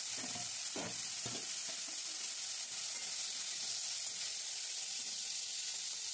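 Bitter gourd pieces sizzling in hot oil in a metal wok, a steady frying hiss, with a spatula stirring and turning them in the second half.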